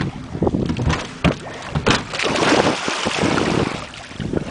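Wind buffeting the microphone, with water sloshing and splashing against the side of a small boat.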